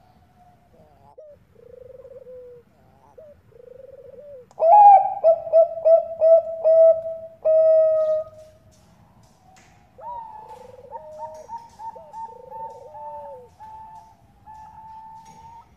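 Zebra dove (Bangkok-type perkutut) cooing. A few soft coos are followed, about four and a half seconds in, by a loud run of rapid stuttering coo notes lasting some four seconds. A quieter string of repeated coo notes starts about ten seconds in.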